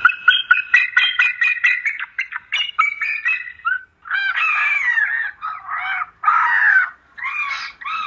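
Seagull calls: a quick run of short, repeated cries for the first few seconds, then a string of longer, harsh wailing cries.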